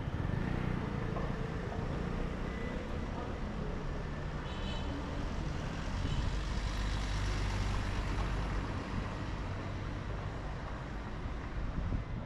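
Street traffic: cars and heavier vehicles passing with a steady engine and tyre rumble, which swells for a few seconds past the middle. A brief high squeal sounds about four and a half seconds in.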